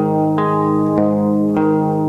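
Music: a slow acoustic black metal piece, with a guitar picking single notes about every half second, each left ringing over a steady low drone.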